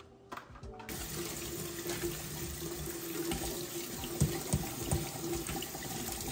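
Kitchen tap running steadily onto cherry tomatoes in a stainless steel mesh colander in a steel sink, turned on about a second in. A few soft knocks come partway through as a hand stirs the tomatoes.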